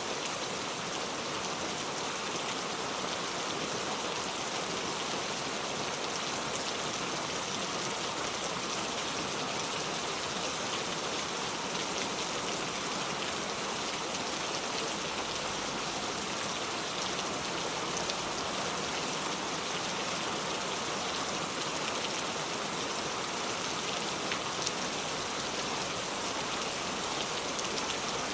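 Steady rain falling, a dense even hiss of many small drops striking surfaces.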